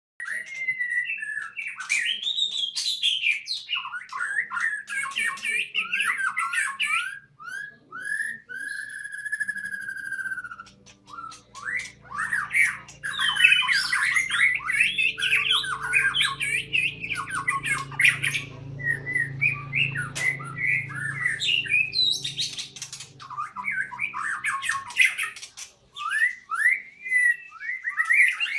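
White-rumped shama singing, a rapid run of varied whistled phrases that sweep up and down, mixed with harsh raspy notes, with a few short pauses.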